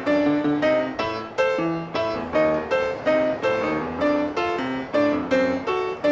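Background music: a solo piano playing a lively tune of quick struck notes, a new note about every half second.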